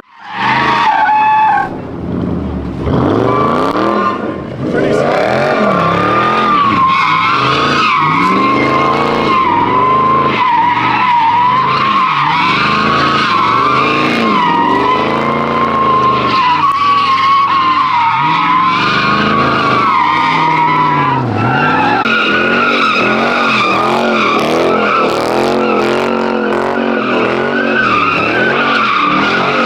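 A car doing burnout donuts: the tyres screech continuously over an engine held at high revs, and the sound swells and fades in a steady cycle of about one to one and a half seconds as the car circles. About two-thirds of the way through, the screech jumps a little higher in pitch.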